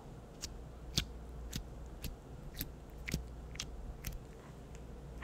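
Faint, sharp clicks, roughly two a second and unevenly spaced, from fingers handling an opened plastic tub of whipped slime.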